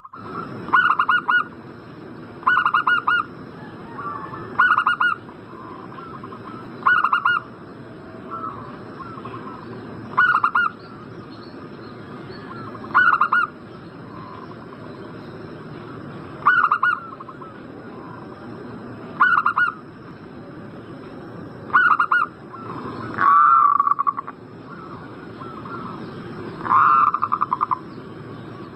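Zebra dove cooing: short, fast-trilled notes repeated every two to three seconds. Two longer, louder calls that fall in pitch come in the last third.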